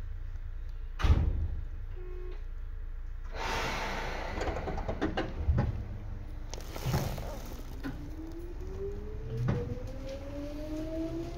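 Seibu 2000 series electric train at a station stop: a door thuds about a second in, a hiss starts a couple of seconds later, and then the train pulls away, its traction motors whining in two tones that rise steadily in pitch as it gathers speed.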